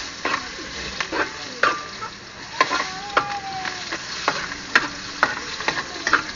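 Chopped peppers and tomatoes sizzling as they sauté in hot oil in a metal wok, while a metal spatula stirs them and clinks and scrapes against the pan about every half second, irregularly.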